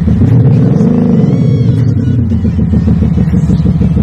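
Porsche Panamera fitted with a Maxhaust active sound booster putting out an artificial sport-exhaust note: a single rev that rises and falls about a second in, then settles into a steady, even idle burble.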